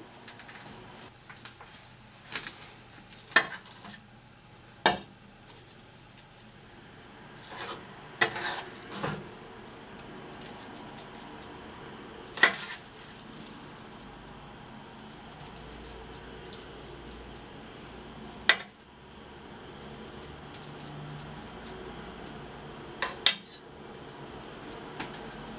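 Metal serving spoon clinking and scraping against a cooking pan as mashed kale and potato is scooped out onto a plate: several sharp clinks a few seconds apart, with quieter scraping between.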